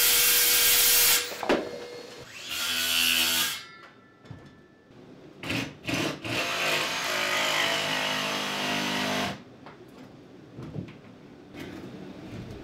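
DeWalt 20V cordless circular saw cutting OSB in two short bursts, followed by a DeWalt 20V cordless jigsaw cutting OSB steadily for about three seconds.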